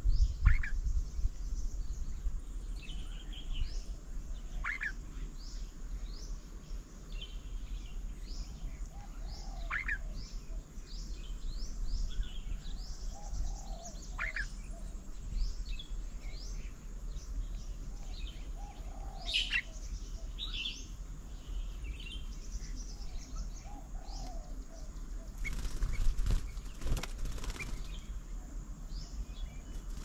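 Small birds chirping and calling at a garden bird table, with a sharp call repeated about every five seconds. A short, louder burst of noise comes about four-fifths of the way through.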